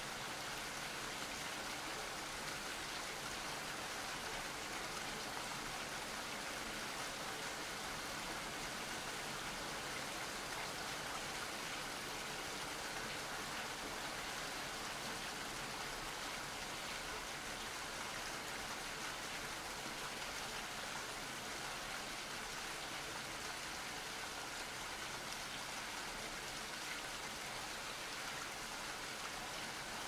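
Steady rain falling, a continuous even hiss with no let-up or thunder.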